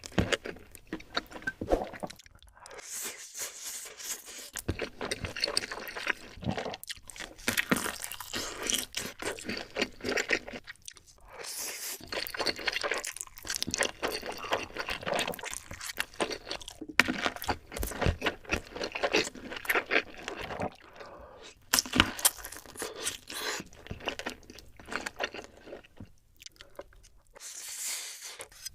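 Close-miked eating sounds: a person biting and chewing crisp food with loud, irregular crunching, broken by a few short pauses between bites.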